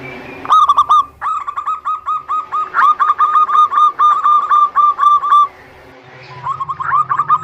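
Zebra dove (perkutut) singing a fast series of short, repeated cooing notes. The series breaks off for a moment about five and a half seconds in, then starts again.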